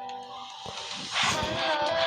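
Huawei P30 ringtone music: one tune fades out about two-thirds of a second in. A new one starts just past a second with a swelling whoosh, followed by a bright, louder melody.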